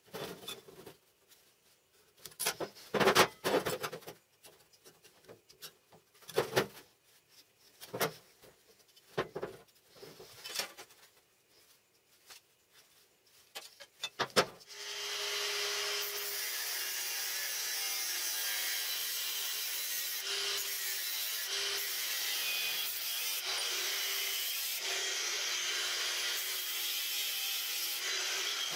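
Steel parts handled on a metal workbench: scattered clicks and knocks. About halfway through, a steady scraping noise begins and runs on without a break as a tool works a steel piece clamped in a bench vise.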